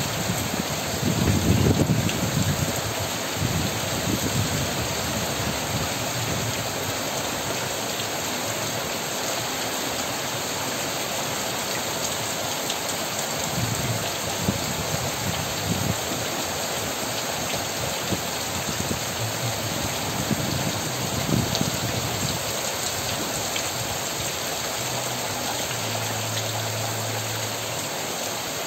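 Steady heavy rain falling, a dense, even hiss of drops on leaves and surfaces, with a brief low rumble about a second in.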